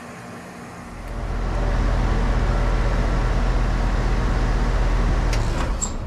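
Amana ANZ14 3-ton heat pump outdoor unit starting up in heat mode: a low hum rises about a second in and settles into a steady run, easing off slightly near the end with a light click.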